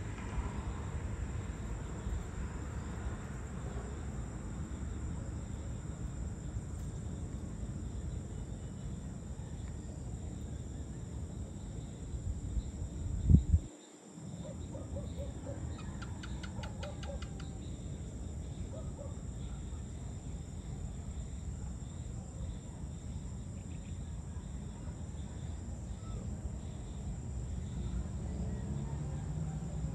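Evening outdoor ambience: a steady low rumble with a thin, steady high insect drone. About halfway there is a loud low thump and a brief dropout, followed by a quick rapid trill and a few short bird chirps.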